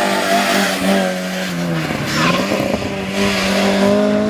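Hill-climb race car engine running at high revs, its pitch dropping about halfway through and then rising again as the car accelerates.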